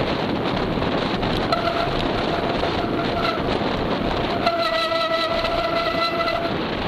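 Wind buffeting an action camera's microphone on the move, with a steady high-pitched horn-like tone sounding faintly about a second and a half in, then loudly for about two seconds in the second half.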